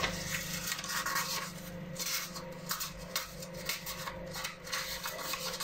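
A sheet of plain printer paper rustling and crinkling irregularly as hands roll it into a cone.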